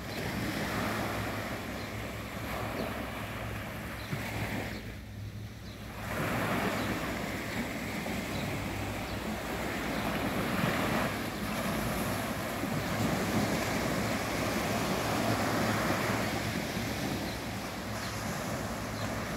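Small sea waves breaking and washing up a sandy beach. The surf noise swells and eases as each wave comes in, dipping briefly about five seconds in, over a steady low rumble.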